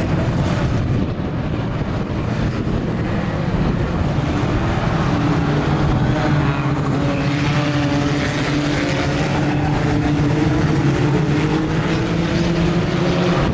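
Engines of a pack of junior banger racing cars, small hatchbacks, running hard as they lap the oval. A steady engine drone strengthens about four seconds in and holds.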